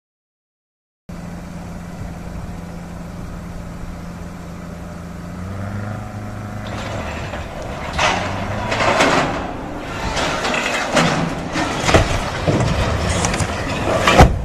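About a second of silence, then an engine running steadily; about halfway its pitch drops and loud rushing, splashing surges build up, peaking near the end as water is thrown up in a huge spray.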